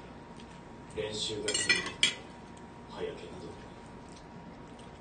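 Metal fork and knife clinking and scraping against a ceramic plate as they are laid down, a quick cluster of clinks between about one and two seconds in.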